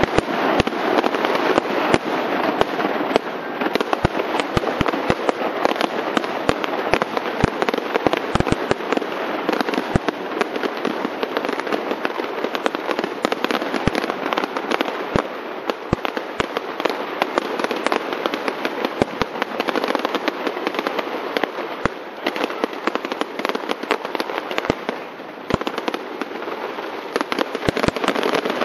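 Aerial fireworks display: a continuous dense rattle of many small bursts, punctuated throughout by frequent sharp bangs of exploding shells.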